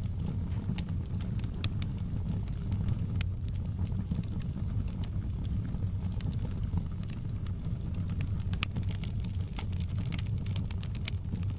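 Fireplace fire crackling: irregular sharp pops and snaps, several a second and some louder than others, over a steady low rumble of the burning fire.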